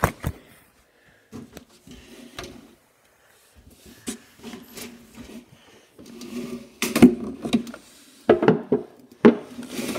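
Scattered clicks, knocks and rustles of the phone being handled against a glass tank, growing busier in the second half.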